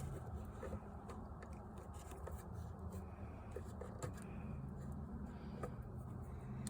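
Faint scattered clicks and light scraping of hands working on parts, over a low steady hum.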